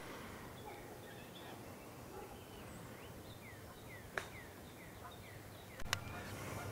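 Two sharp clicks of golf clubs striking balls, about four and six seconds in, heard at a distance. Behind them a bird calls with a quick run of short downward-sliding whistles, over a quiet outdoor background.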